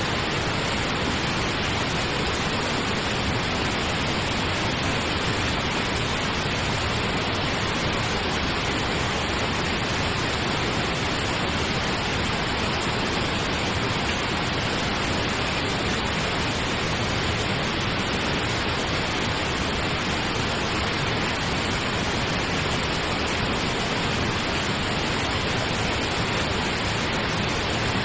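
Pink noise: a steady, even hiss that does not change, played as a sleep sound.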